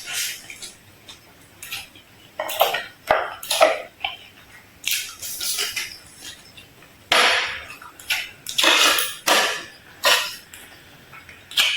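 Irregular clatter of dishes and utensils, in about a dozen short noisy bursts with a sharp click now and then.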